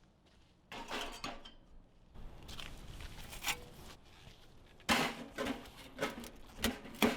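Cooking gear being handled: light clatter, rustling and a run of short knocks and clinks in the second half.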